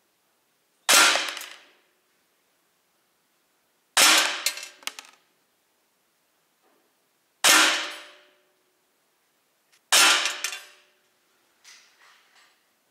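Umarex SA10 CO2 .177 air pistol firing four shots, roughly three seconds apart, each a sharp crack with its blowback slide cycling, followed by a short ringing decay. A few faint clicks come near the end.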